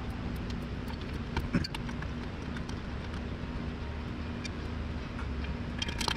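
Scattered metallic clicks and clinks of a wrench working a fitting under a truck's transmission, with a sharper knock about a second and a half in and a quick run of clicks near the end, over a steady low shop hum.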